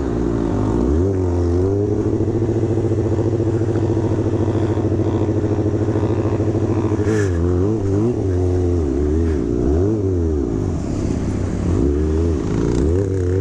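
Motorcycle engine held at steady revs for several seconds, then revved up and down repeatedly through the second half, with one sharp click about seven seconds in.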